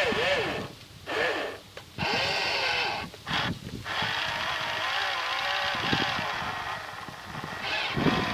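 Electric drive motors and gearing of a 1:12 radio-controlled cable excavator whirring in several short bursts, the whine rising and falling in pitch as each motor starts and stops, then running more steadily from about halfway through.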